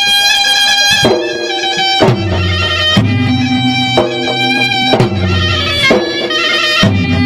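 Gendang adat Maros ceremonial drums played loud and lively, with a heavy stroke about once a second that drops in pitch. Over the drums a reedy wind instrument holds steady, buzzing tones.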